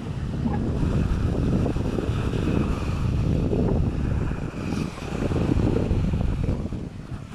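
Wind buffeting the microphone, a loud, gusty low rumble that swells and dips irregularly.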